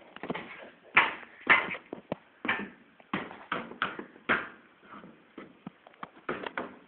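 Irregular knocks on timber formwork (centring) boards, about two a second with a few louder blows, as the planks are hammered and worked loose.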